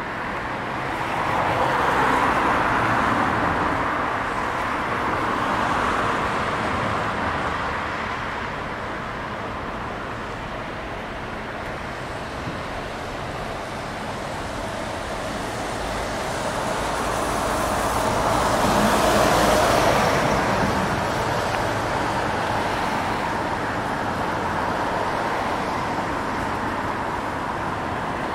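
Street traffic: cars passing on a wet road, their tyre hiss swelling and fading twice, once about two seconds in and again near the two-thirds mark, over a steady hum of traffic.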